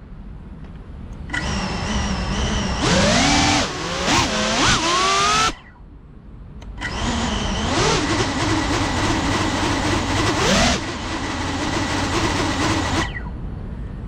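Brushless motors and ducted propellers of a Cinelog35 FPV cinewhoop drone spinning up in two long bursts. The whine slides up and down in pitch as the throttle is worked, and drops back to quiet about a second in, near the middle and near the end.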